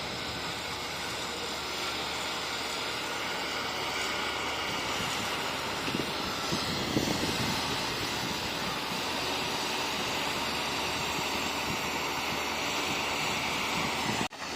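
Bulldozer's diesel engine running steadily under work, a dense mechanical din, broken by a sudden brief dropout near the end.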